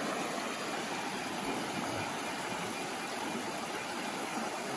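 Steady rushing of water flowing in a shallow, rocky stream.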